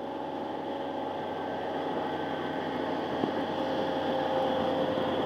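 Boat engine running with a steady hum that slowly grows louder.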